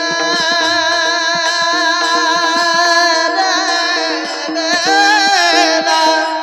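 Marathi devotional bhajan singing: a male singer holds a long, high note whose pitch wavers in the second half, over a steady drone accompaniment and quick percussion strokes.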